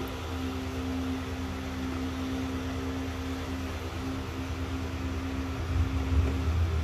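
A steady mechanical hum: a low drone with a couple of steady higher tones over an even hiss, growing a little louder near the end.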